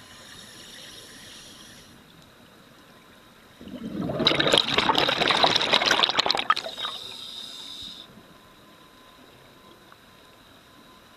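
Scuba diver's exhaled regulator bubbles rushing past the camera underwater: a loud, crackling burst of bubbling that lasts about three seconds and then fades, after a faint hiss at the start.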